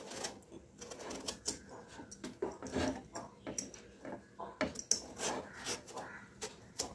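Hand-held vegetable peeler scraping strips of skin off a white pumpkin (ash gourd), in quick, irregular strokes several times a second.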